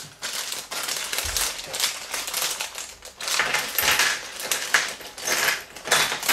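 Thin plastic Lego polybag crinkling as it is handled and shaken out, with small plastic bricks clattering onto a tabletop in quick clicks, in clusters about three seconds in and near the end.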